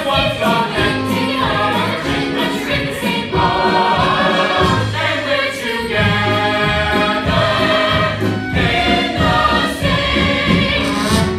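Stage ensemble singing a show tune together at full voice, several parts sung at once over instrumental accompaniment.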